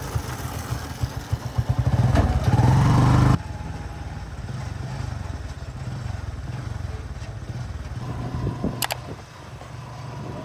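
A small engine running with a rapid putter, revving and growing louder over about a second, then cut off abruptly. A quieter, steady engine hum follows, with one sharp click near the end.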